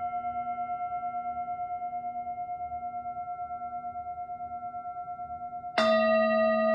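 A singing bowl ringing with a steady wavering pulse and slowly fading. Near the end a bowl is struck again, starting a louder, fresh ring on a different set of tones.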